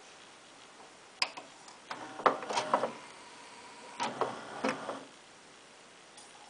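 Sony CDP-C345 five-disc CD changer switching from disc 1 to disc 2. A click about a second in is followed by two spells of motor whirring and mechanical clatter from the disc-changing mechanism.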